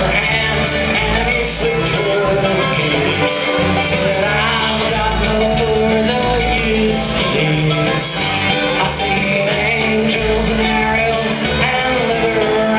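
Live bluegrass-style string band playing at full volume: banjo, acoustic guitar, upright bass, mandolin and fiddle, with a moving bass line under the melody.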